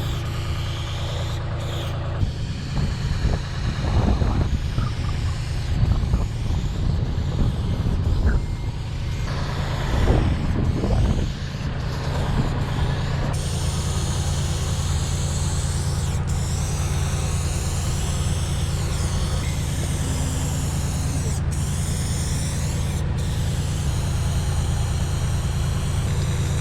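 Aerosol spray-paint cans with wide Astro fat caps hissing, louder and in stretches during the first half, over the steady low hum of a running engine.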